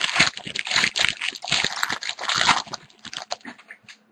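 Plastic wrapper of a hockey card pack being torn open and crinkled, a run of irregular crackling and rustling that fades near the end.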